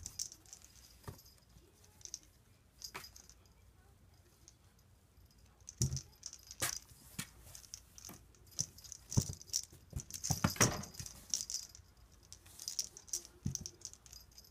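A small handmade cat toy rattling and jingling in irregular bursts as a kitten bats at it, with scattered knocks and taps, busiest in the second half.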